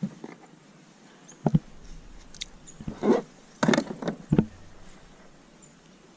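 Several short hollow knocks and thumps on a plastic fishing kayak, about six, clustered between about one and a half and four and a half seconds in.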